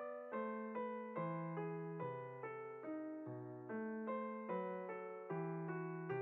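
Background music: a gentle keyboard-piano melody of evenly paced notes, about two or three a second.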